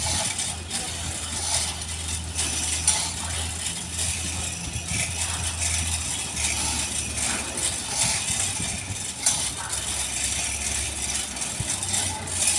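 Steady low hum of heavy machinery with scattered metal clinks and knocks, as a crane-slung ship's propeller shaft is handled into place for installation.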